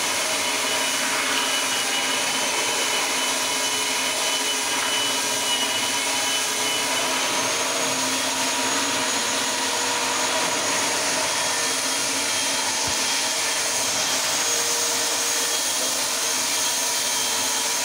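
Electric marble floor grinding and polishing machine running steadily, its motor whirring and the spinning polishing pad scrubbing over the marble floor.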